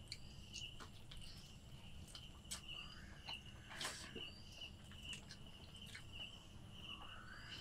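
Faint, steady pulsing chirp of a cricket repeating throughout, with scattered soft clicks and taps from hands eating off steel plates, the sharpest about four seconds in.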